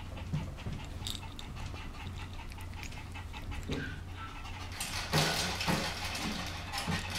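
A three-month-old puppy mouthing and chewing a plush toy: soft rustling, small mouth noises and faint breathing over a steady low hum, getting louder from about five seconds in.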